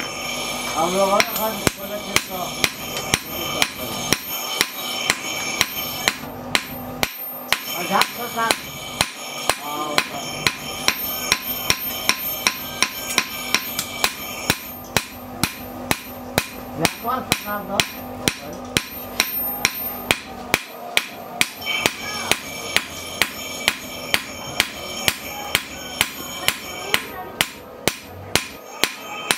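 Hand hammer striking a red-hot steel knife blade on an anvil in a steady run of blows, about two to three a second, with the metal ringing between strikes. The blade is being forged to shape.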